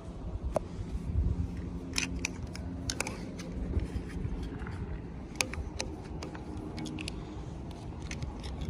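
Toy packaging being handled and opened by hand: irregular light clicks and crackles over low rubbing and handling noise.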